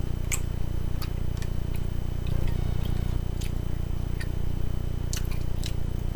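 Close-up chewing and wet mouth sounds of someone eating salad, with scattered short sharp clicks from the fork working in the salad container, over a steady low hum.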